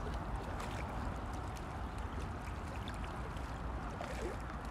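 Steady outdoor rushing noise with a heavy low rumble, without any distinct event.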